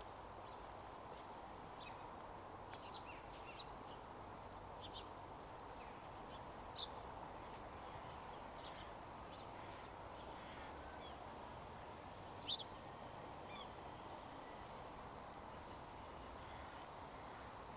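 Faint outdoor morning ambience: a steady low background hum with scattered short, high bird chirps. The two sharpest chirps come about seven and twelve and a half seconds in.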